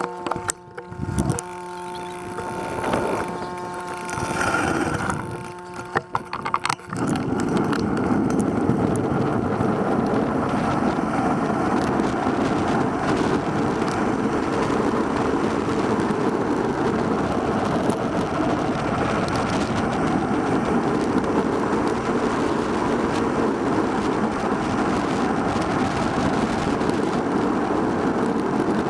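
Steady wind and road noise on a bicycle-mounted camera's microphone while riding, starting suddenly about seven seconds in. Before that, a quieter stretch with a steady hum and a few uneven swells of noise.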